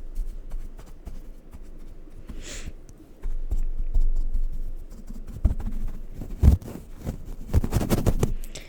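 Close-up ASMR sounds on a microphone: scratchy brushing and rapid tapping, with low handling thumps that become busier from about three seconds in.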